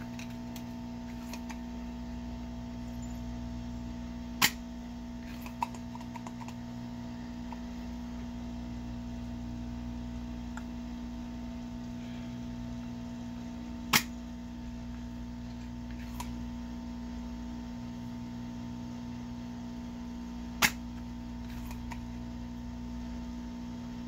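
Spring-loaded desoldering pump (solder sucker) firing three times, each a single sharp snap, several seconds apart, as it pulls molten solder from through-hole joints on a circuit board. A steady hum runs underneath.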